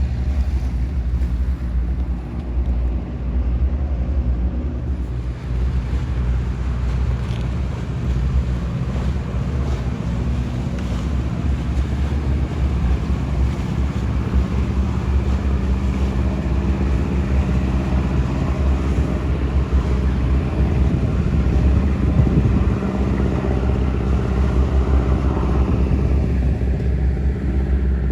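Fishing boats' diesel engines running steadily: a deep, continuous rumble with a low hum, mixed with wind and water noise.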